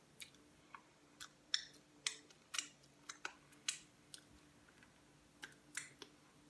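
Close-miked eating sounds from someone working through seafood-boil leftovers: irregular sharp, wet lip smacks and chewing clicks, about a dozen of them, over a faint steady hum.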